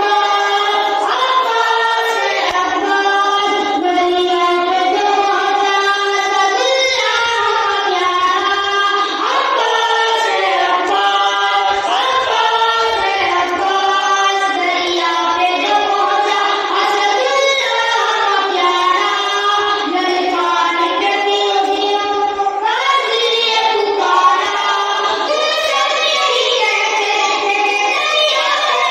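A young boy singing a Muharram noha, an Urdu mourning chant, in a high voice without instruments.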